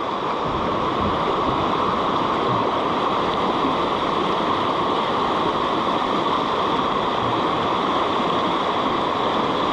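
Loud, steady rush of water pouring over a waterfall and rapids.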